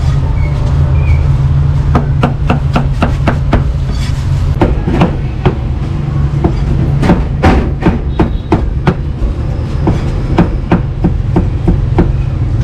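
Cleaver chopping pork on a chopping block: a quick, irregular run of sharp knocks, several a second, starting about two seconds in, over a steady low rumble.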